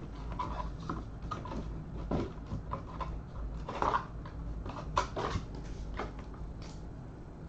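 Trading cards being handled and flipped through: irregular light clicks, taps and rustles of card stock, with a few sharper snaps.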